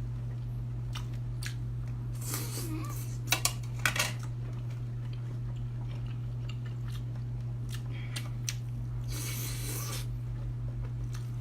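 A person chewing and biting into skewered meat, with scattered clicks and crunchy bursts over a steady low hum.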